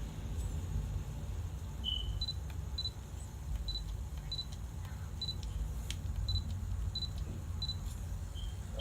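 Canon EOS Rebel SL2 (200D) operation beeps: about ten short, high beeps at uneven gaps of roughly half a second to a second, the sound the camera makes on touch-screen taps. Two of the tones are slightly lower and longer, and a sharp click comes about six seconds in.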